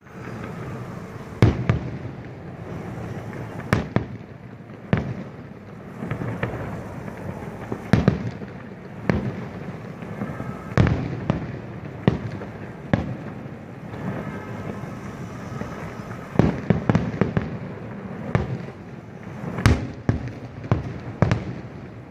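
Fireworks display: aerial shells bursting in irregular loud bangs about every second or two, bunching closer together in the second half, over a continuous background of smaller pops.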